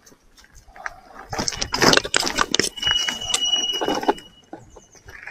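KuKirin V1 PRO e-bike clattering and rattling over rough off-road ground, a dense run of irregular clicks and knocks starting about a second in. Over the second half a steady high-pitched squeal runs for about two seconds.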